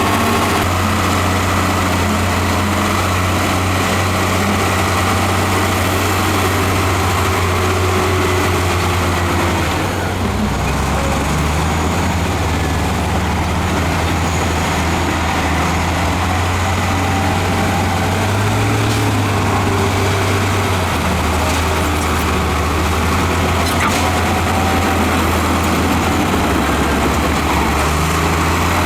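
Heavy diesel engine of earthmoving equipment running continuously, its low engine note shifting with load: it drops about ten seconds in, rises briefly around twenty seconds, then settles.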